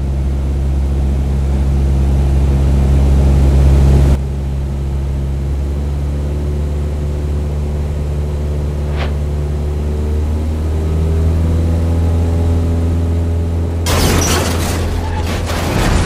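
Light single-propeller plane's piston engine droning steadily, stepping down a little in level about four seconds in. Near the end a loud rushing, crashing noise takes over as the plane dives into the ground.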